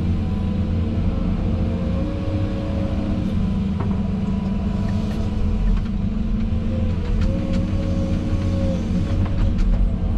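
Tractor engine running steadily while loading topsoil, with a higher steady whine above it. Several sharp clicks and knocks come from about four seconds in.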